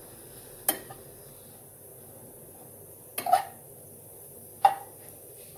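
Spatula scraping and knocking against a frying pan while tossing bread cubes toasting in butter: three short clatters, about a second in, at about three seconds and near five seconds.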